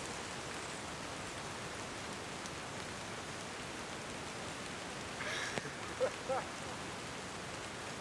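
Steady rain falling in a temperate rainforest, an even hiss. About five seconds in comes a brief burst of noise and a click, then two short pitched sounds.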